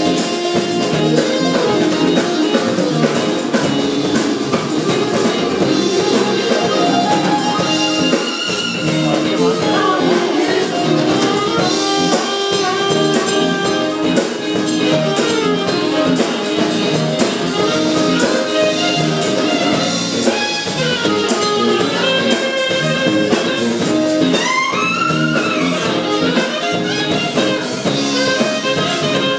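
A live band playing a jazzy number with brass, including trumpet and saxophone, over a drum kit.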